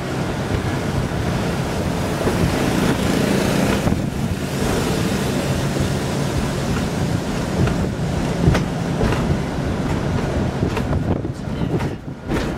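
Steady engine and road noise of a car being driven, with wind noise on the microphone.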